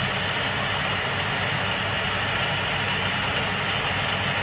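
Steady hum with an even rushing noise from the stove heating a steamer pot of boiling water.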